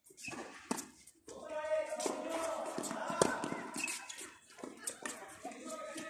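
Tennis rally: a few sharp pops of rackets hitting the ball, the loudest about three seconds in, with players' voices calling and talking over them.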